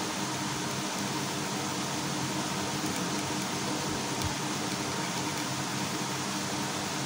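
Steady background hum and hiss, like a running fan, with a faint electrical buzz underneath and a soft low bump about four seconds in.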